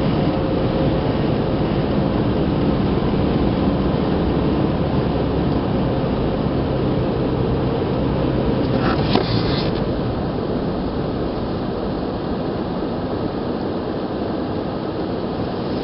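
Car engine and tyre noise heard from inside the cabin while driving on a steady uphill road, with a steady engine hum. A single sharp click about nine seconds in, after which the engine note eases a little quieter.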